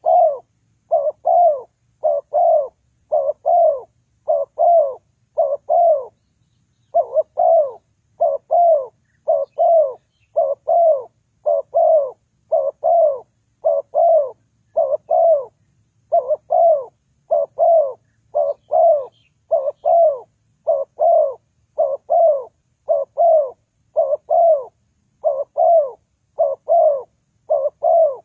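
Spotted dove cooing: a short falling coo repeated about once a second, with a couple of brief pauses in the series.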